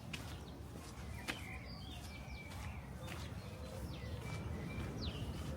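Small birds chirping repeatedly in short, quick notes, some sliding down in pitch, over a steady low rumble, with a sharp click about a second in.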